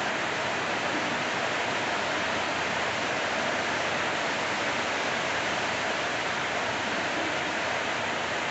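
Steady rain, an even hiss of falling water that doesn't let up.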